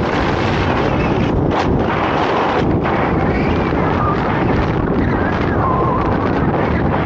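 Steady, loud wind rush buffeting an action camera's microphone as a skier descends fast through powder snow.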